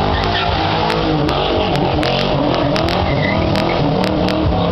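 Ford Mustang convertible's engine revving, its pitch rising and falling over and over as the car slides on wet pavement, with scattered sharp clicks.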